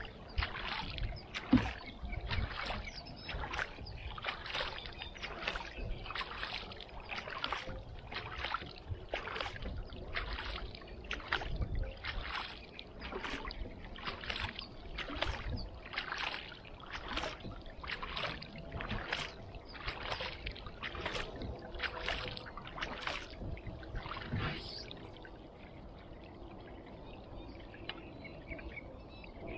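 Double-bladed kayak paddle strokes, one blade then the other dipping and pulling through calm lake water in a steady rhythm of about one splash every three-quarters of a second. The paddling stops about 25 seconds in, and the kayak glides on with only faint water sounds.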